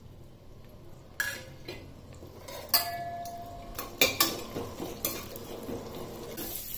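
Metal spoon stirring whole spices in hot ghee and oil in a stainless-steel pressure cooker: sharp clinks and scrapes against the pan, one clink ringing on for about a second, over a light sizzle.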